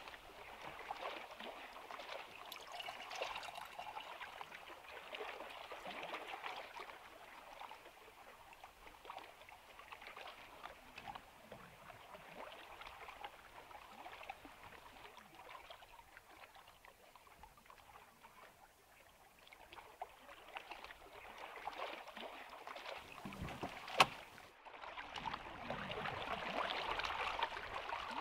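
Lake water lapping at the shore, a soft, uneven washing noise that swells and fades. Near the end a single sharp click, after which the water noise is louder.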